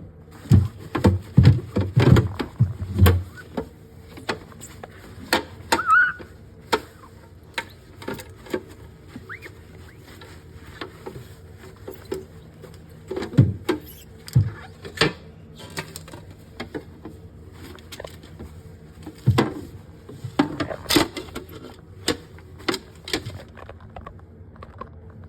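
Irregular knocks, clicks and clatter of objects being handled and set down, loudest in a quick run at the start and in clusters later, over a faint steady electrical hum.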